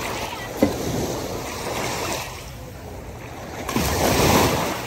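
Small shore waves washing up over wet sand and around bare feet in two surges, the second and louder one near the end. There is a brief thump about half a second in.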